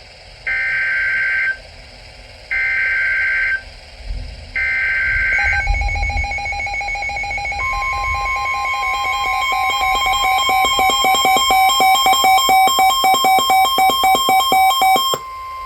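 Emergency Alert System signal: three one-second bursts of warbling SAME header data, then a fast-pulsing alert tone that grows louder. About halfway through, a steady higher tone joins it, and the pulsing stops shortly before the end while the steady tone carries on. A low rumble sits under the third data burst.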